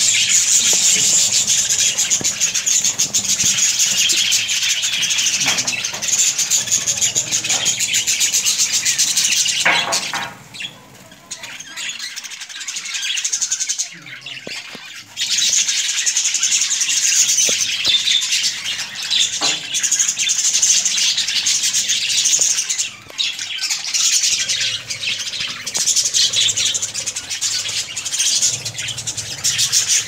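A colony of budgerigars chattering and chirping together in a dense, continuous high twitter. It drops away for a few seconds about a third of the way in, then resumes.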